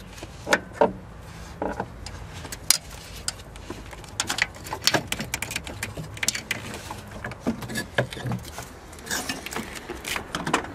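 Clutch cable end being worked at the gearbox's clutch release lever by hand: scattered small metallic clicks and clinks, irregular and unevenly spaced.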